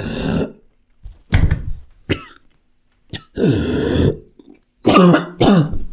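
A man coughing and retching hard in about five rough bursts with short gaps between, the longest lasting about a second.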